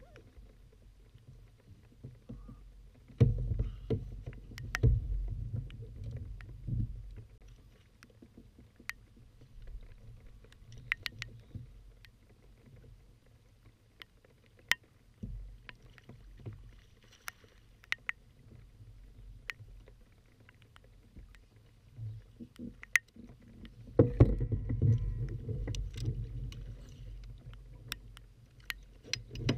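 Muffled knocks and low rumbles of gear and body movement against a plastic Hobie Outback kayak as a rod and landing net are handled, in two bouts a few seconds in and again near the end, with scattered sharp ticks between.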